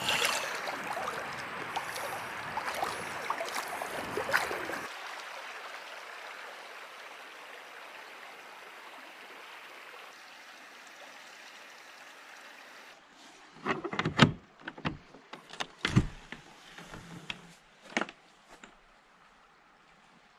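Shallow stream water rushing and splashing around feet in the water, thinning out and fading away. Later, a run of sharp knocks and bumps, the loudest about two-thirds of the way in.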